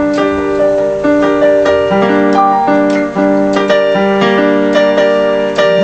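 Electronic keyboard playing an instrumental passage with no singing: a melody of sustained notes over held chords, with a new note struck about every half second.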